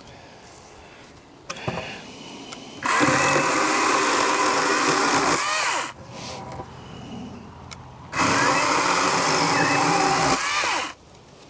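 40-volt Wild Badger battery chainsaw with a 16-inch bar running in two bursts of about three seconds each, its chain cutting into wood. Each burst ends with a falling whine as the motor winds down.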